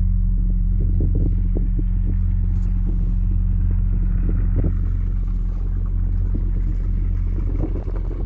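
Large bell's deep hum lingering after a strike: several low tones held together, slowly fading, with small wind or handling knocks on the microphone.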